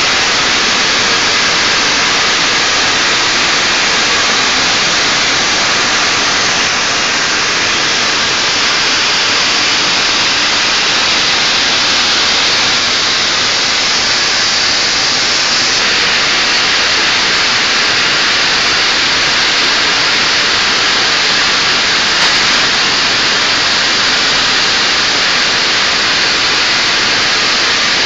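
A loud, steady hiss that does not change, with no tones or knocks in it.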